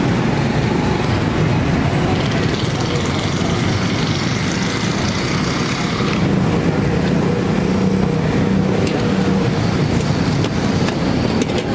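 Steady din of road traffic, with a low hum running under it and a few faint clicks.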